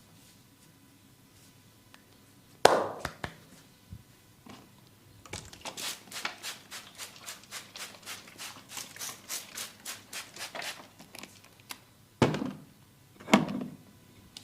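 Hands striking the body during a massage: one loud slap, then a quick run of lighter tapping strikes at about four a second, then two more loud slaps near the end.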